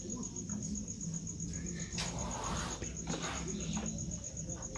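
A cricket chirping: a fast, even train of short high-pitched pulses at one steady pitch, over a low steady hum. There is a brief rustle about two seconds in, and a shorter one a little after three seconds.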